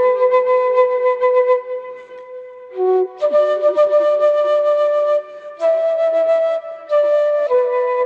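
Bamboo flute playing a slow melody of long held notes with short pauses between phrases, breath noise audible in the tone.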